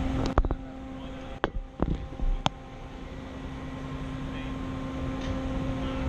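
Bronto Skylift S-90 HLA boom lift's engine and hydraulic drive running, a steady hum with a held tone. A few sharp clicks and knocks in the first two and a half seconds.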